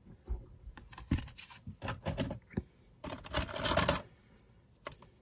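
Small metal pieces of costume jewelry clicking and clinking as they are handled, then a dense, brief rattle about three seconds in as a hand rummages through a wooden box full of jewelry.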